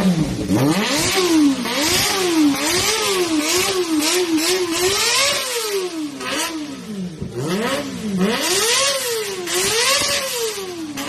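Kawasaki ZX-25R's 250 cc inline-four engine revved repeatedly with throttle blips, its pitch rising and falling about ten times, some revs held higher and longer than others.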